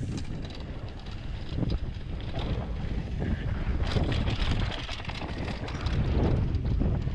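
Wind buffeting the microphone of a camera riding on a downhill mountain bike at speed, over the rumble of knobby tyres on loose gravel and the steady rattle and clatter of the bike on the rough trail.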